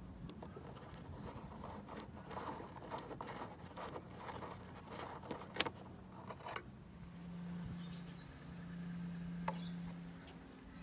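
Small clicks and scrapes of a loosened screw being worked out of a plastic trim panel by fingers, with one sharp click about five and a half seconds in. After that a low steady hum.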